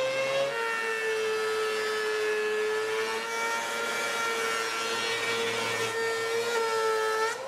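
Benchtop thickness planer running with a steady whine while it planes a glued-up mahogany and maple panel on a jointing jig. The whine drops in pitch about half a second in as the board takes the cut, and climbs back just before the end.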